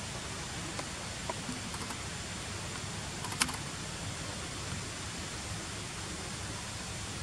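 Steady outdoor background hiss with a faint high steady tone, a few faint ticks and one sharp click about three and a half seconds in.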